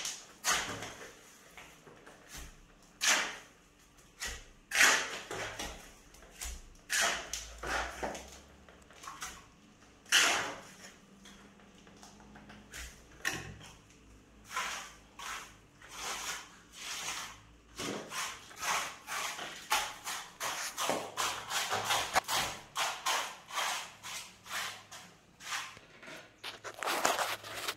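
Trowel and hand work on a sand-and-cement floor-tile mortar bed: a series of separate scrapes and knocks, sparse at first and coming faster near the end as tiles are set down on the bed.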